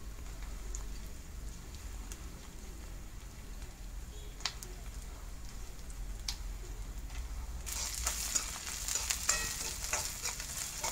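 Chopped onion frying in hot oil in a pan, browning towards golden: a faint sizzle with a few sharp clicks, turning louder and crackly from about eight seconds in.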